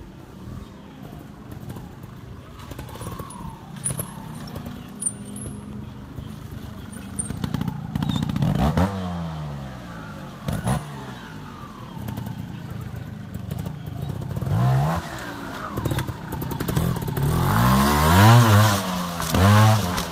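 Two-stroke 300 cc trials motorcycle, a TRS Raga Racing 300, revved in short sharp bursts, each rising and falling in pitch, as it is ridden over rocks. The longest and loudest burst of revs comes near the end, with a few knocks heard earlier.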